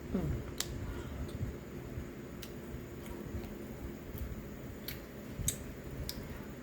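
Close-miked chewing and eating: soft wet mouth sounds with a sharp lip smack or click about once a second.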